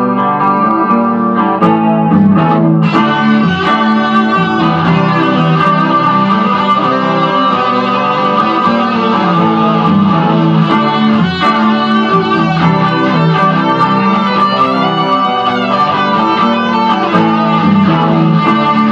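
Rock music led by guitar, playing continuously, with the sound filling out about three seconds in.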